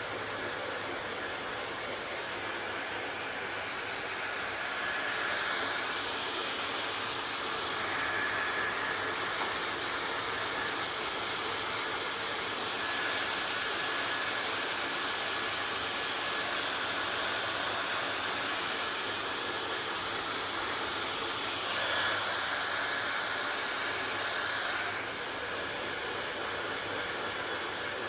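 Hair dryer blowing steadily: a constant rush of air with a faint high whine. Its tone brightens and settles back a few times.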